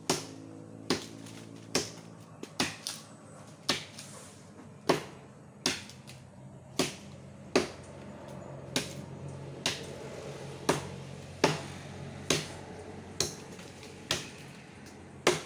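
Bolo (machete) chopping into the wood of a santol tree: sharp single strikes in a steady rhythm of about one a second.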